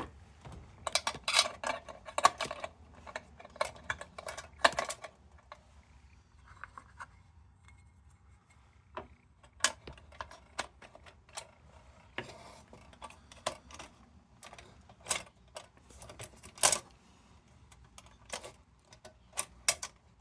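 Small metal clicks and clinks of tin lantern parts being handled and fitted together, a quick cluster of them in the first five seconds, then scattered single clicks after a quiet stretch.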